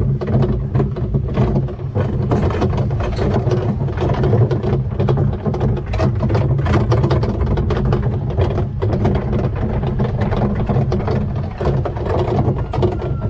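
Small tractor engine running steadily as it tows a train of plastic barrel cars, with constant rattling and knocking from the cars and their wheels over a rough dirt path.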